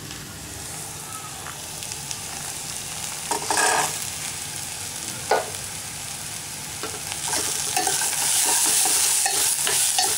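Fresh raw peanuts sizzling in hot oil with fried onions in a stainless steel pan, stirred with a steel spoon. There is a short clatter about three and a half seconds in, a sharp knock of the spoon a couple of seconds later, and the sizzle and stirring grow louder about seven seconds in.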